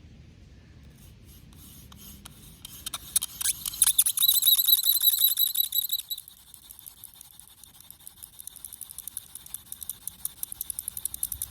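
Wooden spindle of a friction-fire hand drill squeaking and scraping in its hearth board in a fast, even rhythm. It rises to a high squeal for a couple of seconds near the middle, then goes on as quieter rapid scratching.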